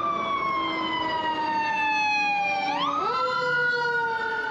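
Emergency vehicle siren wailing: its pitch falls slowly, then sweeps quickly back up about three seconds in and holds high.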